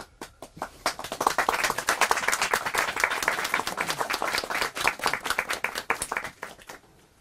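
A small audience clapping: scattered claps build up within the first second, run dense for several seconds, then thin out and stop near the end.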